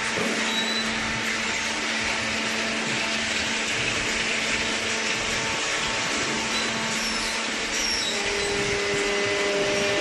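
Industrial machinery running steadily in a cardboard baling plant: an even, hissing drone over a constant electric hum, with a higher steady tone joining near the end.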